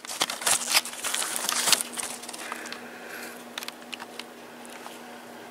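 Handling noise at a workbench: a cluster of light clicks, knocks and rustling over the first two seconds, then scattered fainter clicks, over a faint steady hum.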